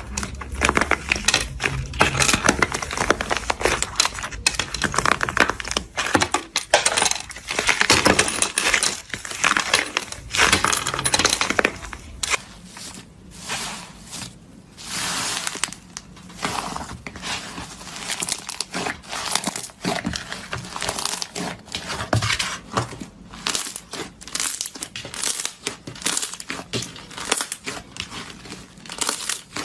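Slime being squished and stretched by hand, giving dense crackling and popping, steady at first and then coming in shorter bursts from about halfway.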